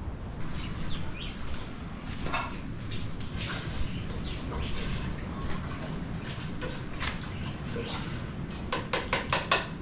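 Scattered clinks and taps of cooking utensils against dishes over a steady low rumble, with a quick run of about six taps near the end.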